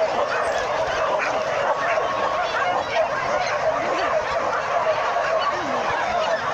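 A pack of hunting dogs yelping and barking together in a continuous, overlapping din.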